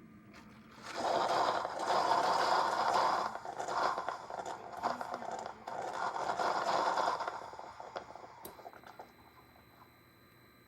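Scraping and rattling handling noise in two or three bouts, starting about a second in and dying down about seven seconds in. A faint steady high-pitched tone sets in near the end.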